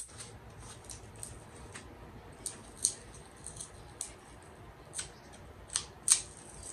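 Edge gel being worked into the hairline with the fingers: about a dozen soft, sticky clicks and crackles at irregular spacing, the sharpest near the middle and again near the end.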